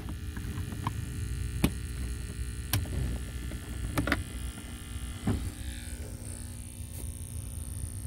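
Plastic and plug handling: about five sharp clicks and knocks as an electrical plug and cord are pushed into an outlet inside a cut-open plastic bucket, over a steady low rumble of wind on the microphone.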